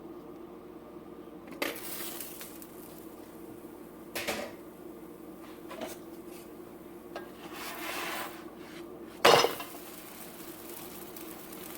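Kitchen utensils knocking against a pan while flatbread is cooked: a few separate knocks, a second-long scrape, then the loudest knock about nine seconds in, over a faint steady hum.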